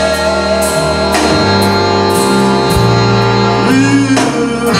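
Live blues band playing between vocal lines: horn section, electric guitar, bass, keyboards and drums over a steady beat.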